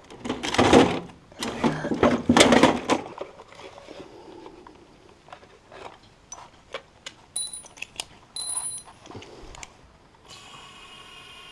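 Hand tools and small metal parts being handled: a few loud scraping, rustling bursts in the first three seconds, then scattered light clicks and clinks, and a short steady whistling tone near the end.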